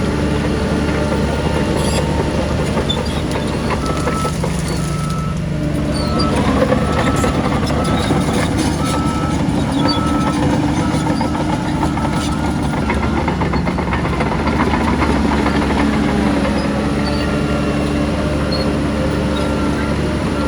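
Heavy diesel earthmoving machinery running steadily, its engine note shifting about five seconds in. A repeated beeping tone sounds through the middle stretch.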